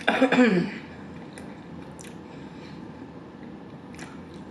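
A short, loud hum of enjoyment falling in pitch right at the start, then quiet chewing of a piece of seasoned corn on the cob, with a few faint wet mouth clicks.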